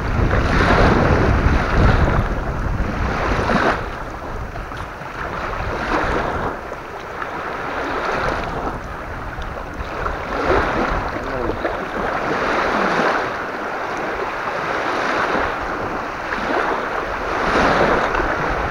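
Strong, gusty wind buffeting the microphone, with waves washing on the shore of the reservoir; the noise surges and drops every second or two.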